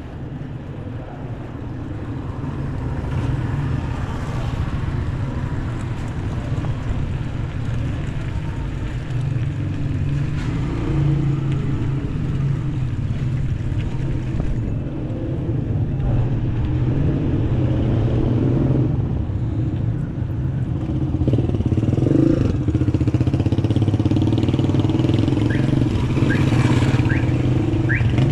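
Street ambience heard from a moving bicycle: a steady low rumble of motor traffic and riding noise that slowly grows louder. A few short high squeaks come near the end.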